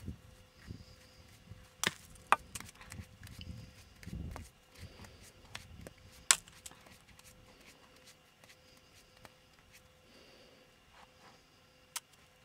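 Scattered sharp clicks and knocks of handling, a few of them loud, with a brief low rumble about four seconds in.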